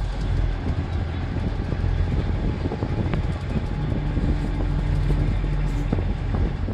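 A river vehicle ferry's engine runs with a deep rumble while wind buffets the microphone. A steady low hum comes in for about two seconds in the middle.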